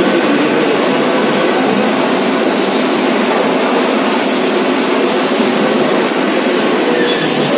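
Metal lathe running steadily, its four-jaw chuck spinning a workpiece held off-centre for eccentric turning, giving a loud, even machine noise.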